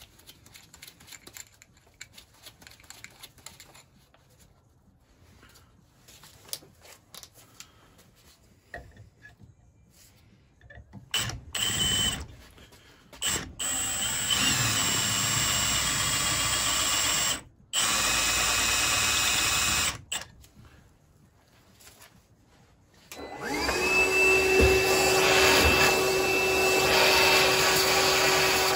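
Cordless drill running in short bursts and then two steady runs of a few seconds, drilling out a rusted fastener broken off flush in a cast-iron engine vaporiser body. About 23 seconds in, a cordless handheld vacuum starts up with a steady whine and runs on, clearing the drilled spot.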